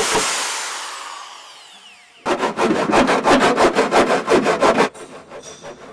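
An angle grinder cutting the steel front wing of a Land Cruiser for a snorkel, then spinning down with a falling whine. From about two seconds in, a run of quick rhythmic rasping strokes, about six a second, as the panel is sawn or filed, stops about a second before the end.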